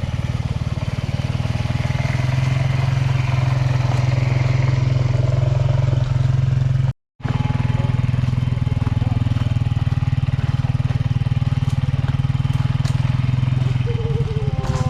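A motor vehicle's engine running steadily with a low drone, broken by a brief gap about seven seconds in.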